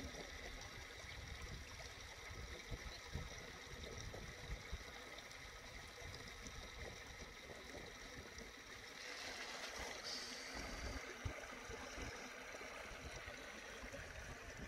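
Faint outdoor ambience: a steady rushing hiss with wind rumbling on the microphone. The hiss grows fuller about nine seconds in.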